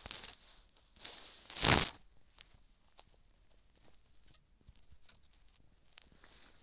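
Footsteps crunching in snow: a few irregular steps, the loudest about a second and a half in, then only faint scattered crackles.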